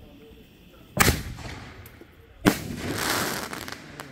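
7-inch canister firework shells going off: two sharp booms about a second and a half apart, the second trailing off over about a second.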